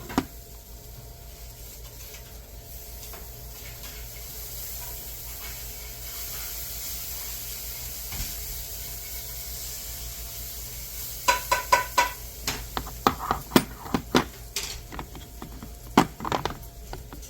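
Steel impact sockets clicking and clinking as they are handled and fitted onto an impact wrench, after a long stretch of faint steady hiss. The clicks come in a quick cluster about eleven seconds in, with a short metallic ring, then scattered clicks for a few more seconds.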